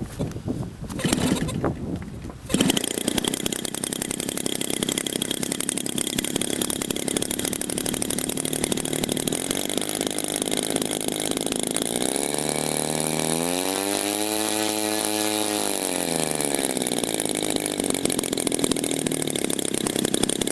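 RCGF 52 cc two-stroke twin-cylinder model aircraft engine starting on a hand-flipped propeller: a couple of seconds of pops and knocks, then it catches and runs steadily. About two-thirds of the way through it is revved up, held for a couple of seconds, then brought back down.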